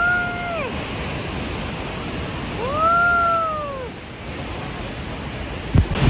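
Steady roar of Niagara's Bridal Veil Falls crashing down close by. Over it, twice, a long call rises and falls in pitch for about a second, and a low bump comes near the end.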